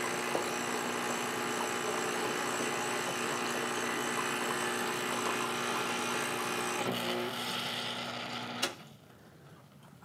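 Ascaso Dream Up espresso machine's vibratory pump buzzing steadily as it pushes water from the tank through the thermoblock and out the steam wand, flushing milk off the wand tip and cooling the machine back toward brewing temperature. The sound changes slightly about seven seconds in and stops near the end.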